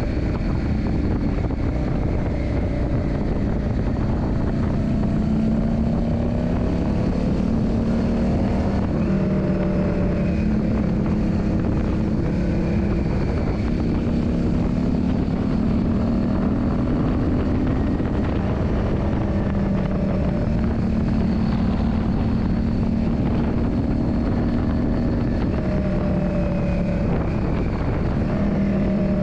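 Yamaha Drag Star 400's air-cooled V-twin engine running under way, its note climbing and then dropping back every few seconds as the throttle and gears change, over a steady low rumble.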